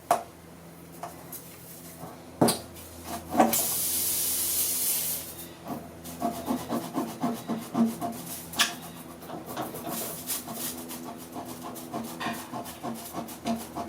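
Tire-plug reamer being worked into the puncture of a riding mower tire: scraping and clicking of the tool in the rubber. A burst of hissing air lasts about two seconds, starting around four seconds in.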